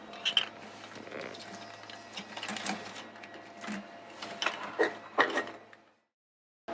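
Scattered small mechanical clicks, knocks and rattles of parts and tools being handled, with the loudest knocks in the last couple of seconds, then stopping abruptly.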